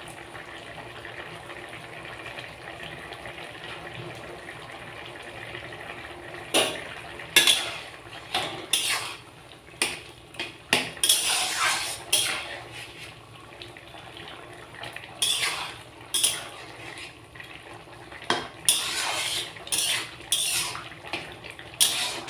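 A spoon knocking and scraping against a kadai as a simmering curry is stirred, in irregular clatters from about a third of the way in. A steady low hiss runs underneath.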